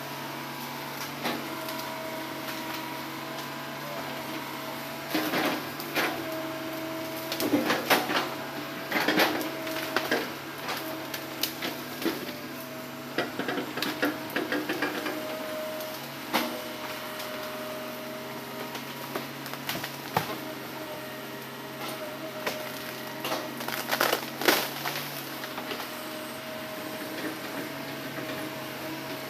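Hitachi hydraulic excavator running steadily, a constant engine hum with a whine that shifts a little in pitch as the arm moves. Over it come scattered knocks, cracks and clanks from the bucket working among felled logs and brush, thickest between about five and ten seconds in and again near twenty-four seconds.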